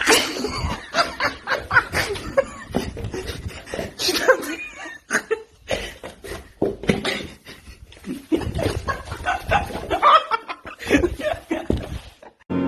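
A person laughing hard in repeated fits, which break off abruptly near the end.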